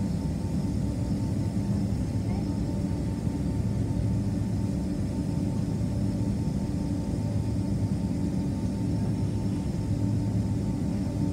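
Boeing 767-300 cabin noise while taxiing: the jet engines at low taxi thrust give a steady low hum with a few held tones, heard from inside the cabin.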